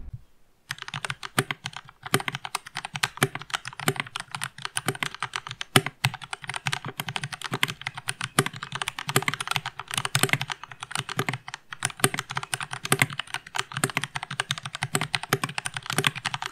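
Typing test on a Vortex VX5 mechanical keyboard fitted with Gateron Brown tactile switches lubed with Krytox 205g0, clipped and lubed Cherry stabilizers and ABS double-shot keycaps. It gives a fast, continuous clatter of keystrokes that starts about a second in.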